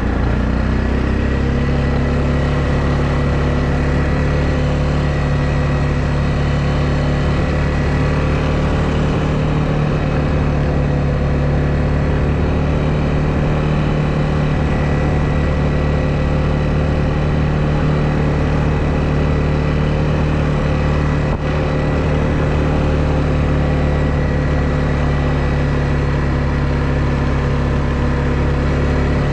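ATV engine running at a steady speed while riding, its pitch rising slightly about a second in and then holding even.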